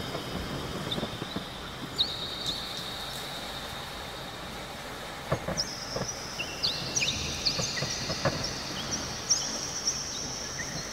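Night-time nature ambience: high, steady insect trilling with many short chirping calls over a low hiss, and a few soft knocks.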